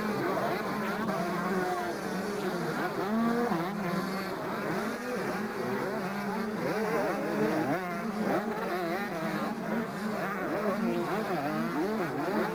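Several motocross bikes racing on a dirt track, their engines revving up and down with pitch constantly rising and falling as they overlap.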